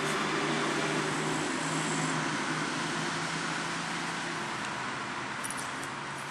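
Steady engine noise with a low hum and a rushing wash over it, slowly fading over the last few seconds.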